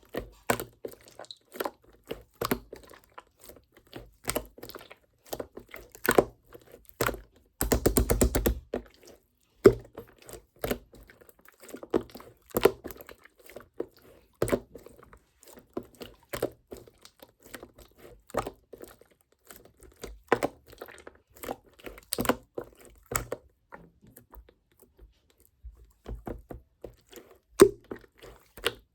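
Slime being squeezed and worked by hand, giving irregular sticky clicks and pops. About eight seconds in there is a fast run of crackling pops lasting about a second, and a short quieter pause comes near the end.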